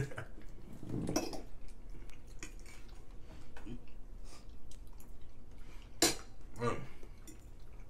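Metal forks scraping and clinking against ceramic dinner plates, with scattered small clicks and a sharper clatter about six seconds in.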